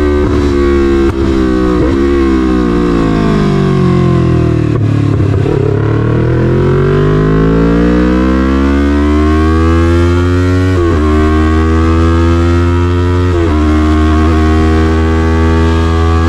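Yamaha MT-03's 321 cc parallel-twin engine through an SC-Project CRT full exhaust, running loud. The engine speed falls away for a few seconds, then climbs steadily under acceleration, with two quick gear changes before it holds steady.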